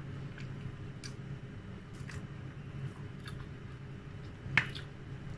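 Quiet eating sounds: scattered small clicks and wet smacks of chewing, with one sharper click about four and a half seconds in, over a steady low hum.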